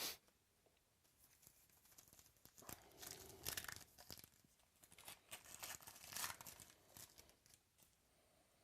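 Wrapper of a baseball card pack being torn open and crinkled by hand, in irregular bursts of rustling with two louder stretches, after one sharp click at the start.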